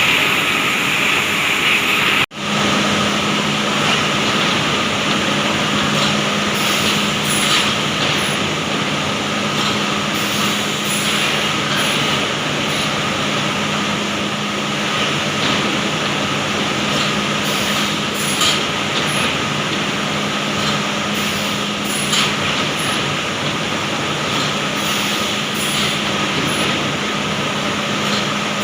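Industrial MDF board processing line running: steady machine noise and hum from sanding, edging and conveying machinery, with faint light ticks at intervals. The sound cuts out briefly about two seconds in, then resumes with a steadier hum.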